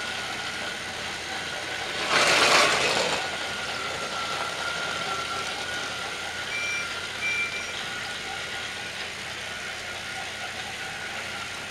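Battery-powered Trackmaster toy train motors whirring steadily, with a thin constant whine. About two seconds in comes a loud noisy burst lasting about a second, and two short high beeps follow near the middle.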